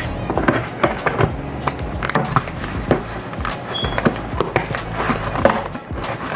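A cardboard box being opened and the plastic seed-tray kit inside handled: irregular scrapes, rustles and light knocks.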